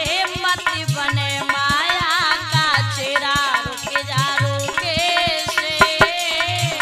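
A woman singing a Hindi chetavani bhajan (devotional warning song), her voice gliding and wavering through ornamented phrases over a steady hand-drum beat with light percussion.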